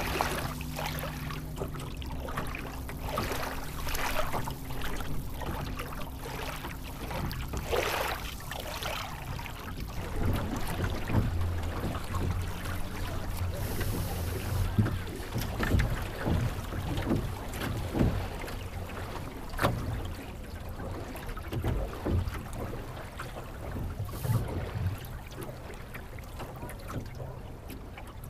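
Water splashing and gurgling along the hull of a Melonseed sailing skiff under way, with irregular slaps of small waves and wind rumbling on the microphone.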